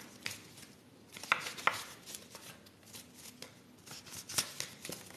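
A deck of fortune-telling cards being shuffled by hand: faint, irregular clicks and slaps as the cards hit one another.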